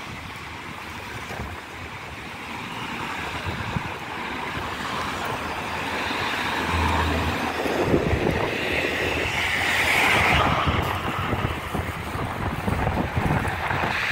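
Street traffic going by, with one vehicle growing louder to a peak about two-thirds of the way through and then fading. Wind rumbles on the microphone throughout.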